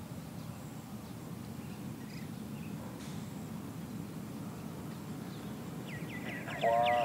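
Faint, steady low rumble of open-air background noise. Near the end a bird gives a quick trill of short chirps, and just before the end a louder pitched sound begins.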